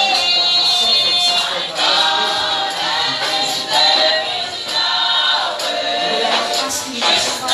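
Gospel song sung by a woman into a microphone, with a group of other voices singing along as a choir. The notes are held and sustained.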